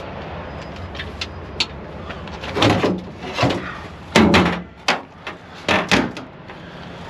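Stainless-steel valve-cabinet doors on the rear of a tank trailer being swung shut and latched: a series of metal clanks and bangs, the loudest a little after four seconds in.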